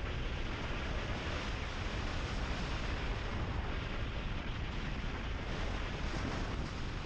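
Wind buffeting the microphone over the road noise of a car driving steadily along a gravel road: an even low rumble and hiss with no breaks.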